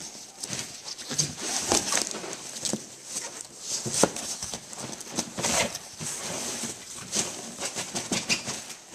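Cardboard box being worked out of a tight-fitting cardboard shipping box: irregular scraping and rubbing of cardboard on cardboard with repeated knocks, the loudest about four seconds in.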